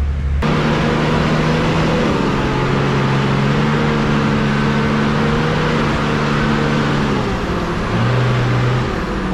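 A 4x4 vehicle's engine running steadily under load. Its note shifts up and down a little, then drops to a lower pitch for about a second near the end.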